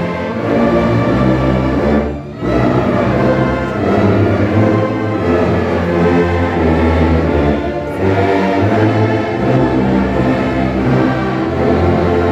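A low brass and saxophone ensemble of tubas, contrabass saxophones, euphoniums and trombones playing in sustained chords over deep bass notes. The playing breaks briefly for breath about two seconds in and again near eight seconds.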